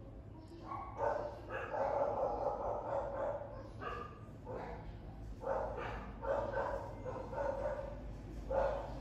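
A dog barking repeatedly, off and on.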